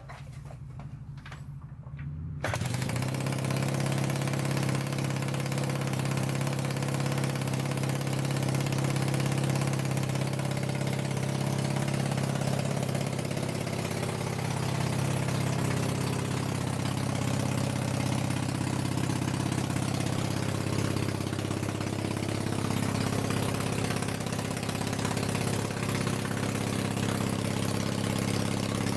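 Honda CB250 four-stroke parallel-twin engine starting about two seconds in, then idling steadily through half an exhaust, firing on both cylinders.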